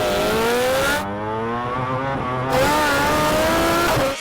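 Motorcycle engine revving hard under full acceleration off the start line, its note climbing in pitch.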